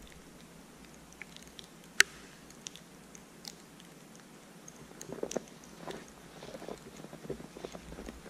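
Footsteps crunching in fresh snow, an uneven run of soft steps starting about five seconds in. Before that it is quiet, with a few faint ticks and one sharp click about two seconds in.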